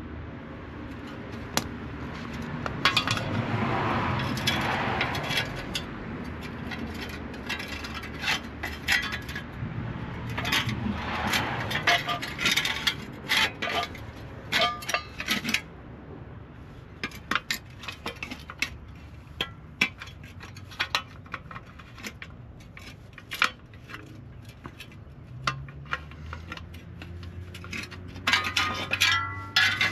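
A metal end piece being cut off by hand with a hand tool rather than a cutoff wheel: a run of irregular metallic clicks, clinks and scrapes, with longer rasping stretches about three seconds in and again around eleven seconds.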